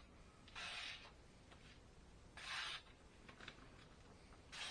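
A freshly sharpened knife slicing through a sheet of paper in the paper test: three short papery cuts about two seconds apart. The blade goes through easily, a sign of a sharp edge.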